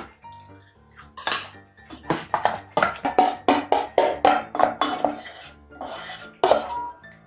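Metal cutlery clinking and scraping against dishes in a quick, uneven run of sharp clinks, about three a second at the busiest, over background music.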